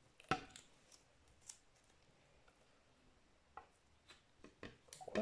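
Quiet scattered clicks and light taps of a plastic jug being handled as it is tipped upside down over a slow cooker to drain the last of a thick lye solution, with the taps closer together near the end.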